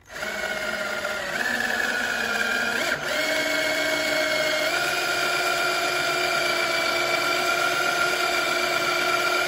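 Cordless drill running steadily as it bores a 3/4-inch hole through a plastic panel, a continuous motor whine that steps up in pitch twice, with a brief dip about three seconds in.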